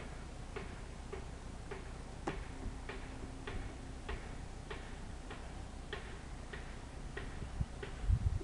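Baitcasting reel being cranked to retrieve a crankbait, with a steady ticking about twice a second that starts about half a second in. A few low thumps come near the end.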